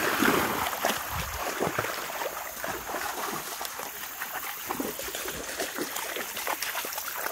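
A Labrador retriever splashing through a shallow creek, water sloshing with each stride; the biggest splash is right at the start, then irregular lighter splashes as it wades on.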